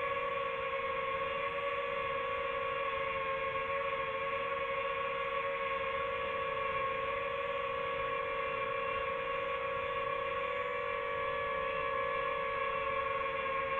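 Quadcopter drone hovering, its propellers and motors giving a steady pitched whine that wavers slightly.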